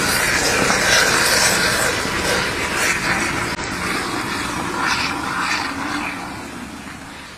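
Molten steel pouring from a tilted furnace into a ladle: a steady rushing noise with brief surges, fading near the end.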